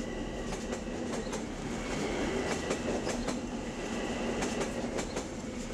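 A train running past on the rails, with steady running noise and irregular clacks from the wheels.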